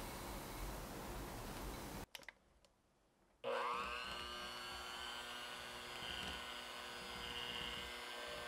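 An electric hand mixer switches on about three and a half seconds in, its motor whine rising and then holding steady as the beaters cream coconut sugar into softened butter in a glass bowl.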